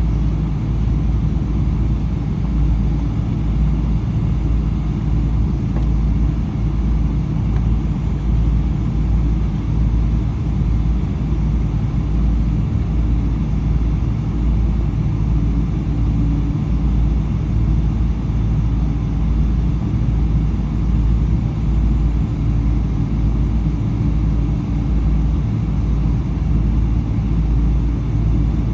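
Steady low rumble inside the cabin of a Boeing 777-300 with Rolls-Royce Trent 800 engines running, heard from a window seat.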